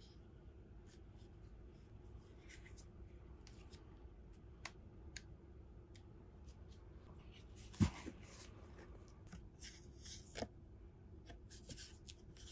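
Gloved hands handling a small wooden speaker in a leather case and its cardboard packaging: soft rustling and scraping with a few light clicks, a dull thump about eight seconds in, and a smaller knock a couple of seconds later.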